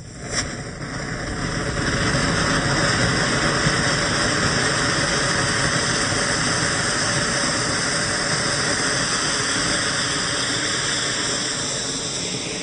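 Anar (Diwali fountain firecracker) burning and spraying sparks with a steady hiss, building up over the first couple of seconds and easing slightly near the end.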